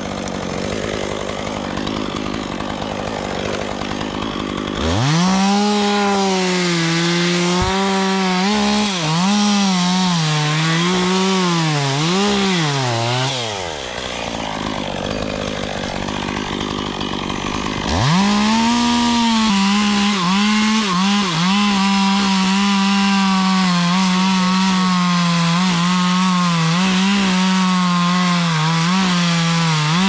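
Two-stroke chainsaw idling, then revved up about five seconds in and cutting into a maple limb, its pitch sagging and recovering several times under load. It drops back to idle for a few seconds, then revs up again at about eighteen seconds and cuts steadily with small dips. These are the undercuts on a limb held under rope tension.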